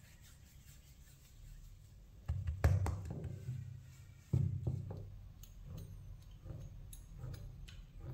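Wooden rolling pin on a wooden pastry board: two sharp knocks, about two seconds in and about four seconds in, each followed by a low rumbling roll over the dough. Lighter clicks and ticks follow in the second half.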